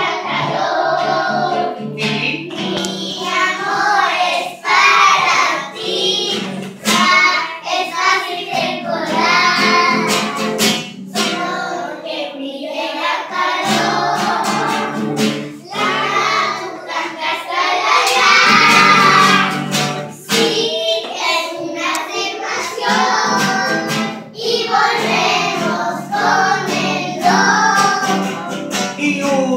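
A group of young children singing a song together, accompanied by a strummed acoustic guitar.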